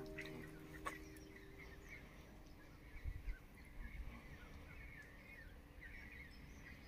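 Faint birds chirping, with background music fading out over the first couple of seconds and a single light click about a second in.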